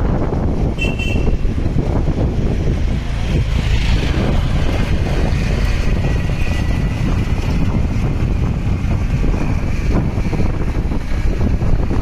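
Steady heavy wind rumble on the microphone and road noise from riding along a city street in an open vehicle. A brief high beep, like a horn or bell, sounds about a second in.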